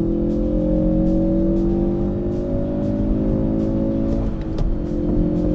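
Ford Focus RS's turbocharged 2.3-litre four-cylinder engine running steadily on the move, its pitch slowly rising, with a brief break in the tone about four seconds in.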